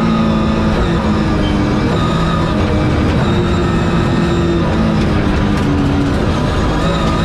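BMW rally car engine running hard at high revs inside the cabin, its pitch stepping up and down several times with the gear changes, over the rumble of tyres on a gravel road.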